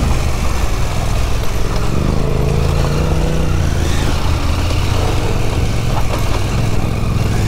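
KTM adventure motorcycle engine running steadily at low speed on a gravel track, with wind and gravel noise over it.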